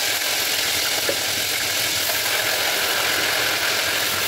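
Chicken pieces frying in very hot oil in a pot: a steady, even sizzle.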